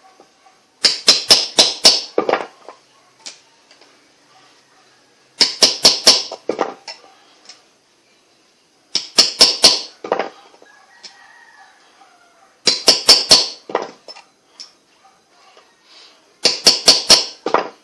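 Quick metal-on-metal hammer taps on a small part of a jigsaw's bearing assembly, in five bursts of about five or six sharp taps each, a few seconds apart.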